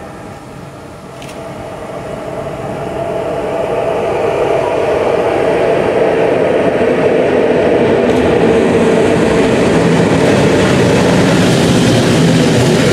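PKP EU07 electric locomotive drawing a passenger train into the platform, its rumble and hum growing louder as it approaches and then staying loud as it passes close by.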